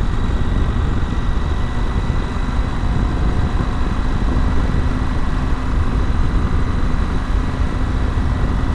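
Parallel-twin motorcycle being ridden at road speed: steady wind rush on the microphone over the engine's running.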